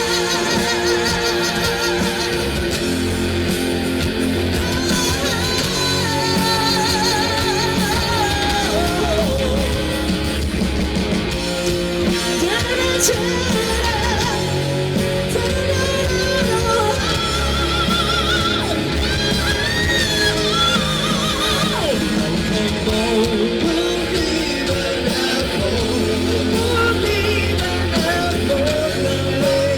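Rock band playing a Vietnamese rock song in an instrumental stretch: drums and bass underneath with a wavering, sustained lead line above.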